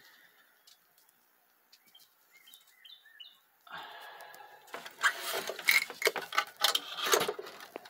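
A few faint bird chirps about two to three seconds in, then from about four seconds loud rustling, scraping and knocking as the camera is moved and handled against the wooden framing.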